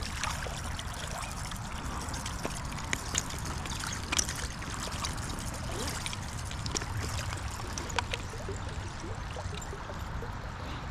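Creek water trickling and splashing steadily, with scattered small splashes and clicks.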